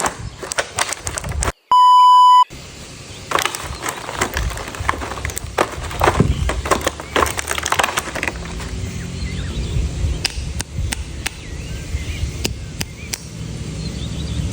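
Clicks and crackles of plastic toy packaging being handled and opened. About two seconds in, a loud steady electronic beep lasts under a second and is the loudest sound.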